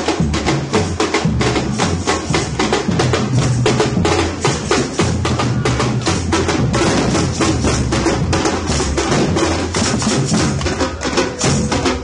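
Marching street drum band playing: deep bass drums booming under a fast, steady beat of sharp drum strokes.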